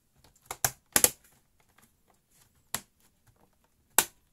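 Sharp plastic clicks and snaps as an all-in-one PC's casing clips are pressed back into place: a quick cluster about half a second to a second in, then single clicks near the middle and the end.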